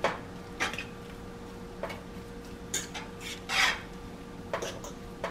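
Metal fork stirring thick potatoes in a pot, scraping and clinking against the pot about six times, roughly once a second, the loudest a little past halfway.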